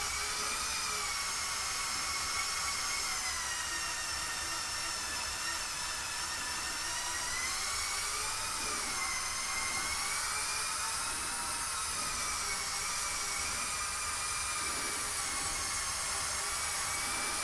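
Electric motors and gear train of a LEGO Technic 42129 Mercedes-Benz Zetros trial truck whining steadily as it crawls along, the pitch wavering up and down with the load.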